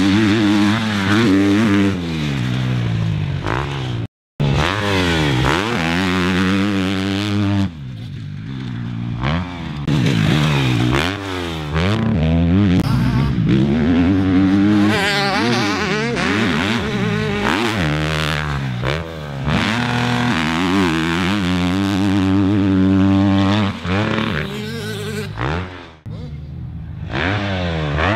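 250 cc KTM motocross bike's engine revving hard on the track. Its pitch rises and falls again and again as the rider opens and closes the throttle and shifts gears. It cuts out briefly about four seconds in.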